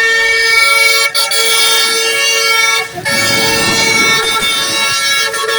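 A vehicle horn held down, blaring one steady high-pitched tone, broken only by two brief dips about a second in and just before three seconds.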